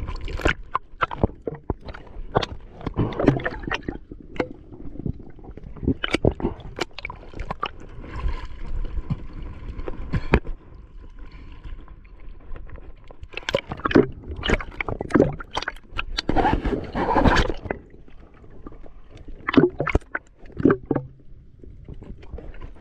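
Sea water sloshing and splashing around a camera held at the surface, with irregular splashes and gurgles as it rides the small waves and dips under.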